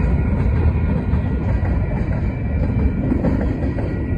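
Freight train cars, centerbeam flatcars then a tank car, rolling past at speed: a loud, steady low rumble of steel wheels on rail.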